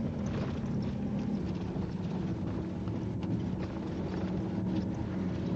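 Vehicle engine running steadily, heard from inside the vehicle, with road and wind noise; its note shifts slightly lower about a second and a half in.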